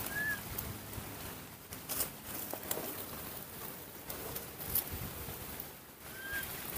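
Dry leaf litter and twigs crackling and rustling under baby monkeys moving about on the forest floor, with two short high chirps, one near the start and one about six seconds in.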